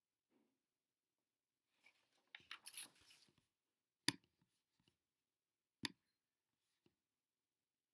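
Paper rustling as a sheet is handled and put down, then two sharp mouse clicks about two seconds apart.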